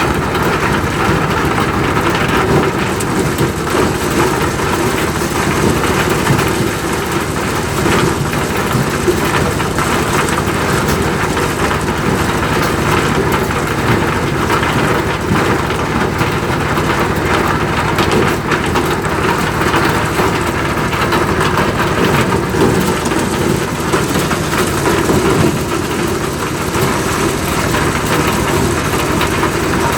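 Motorised corn sheller running steadily. A constant engine hum sits under a dense, even rushing noise from the threshing.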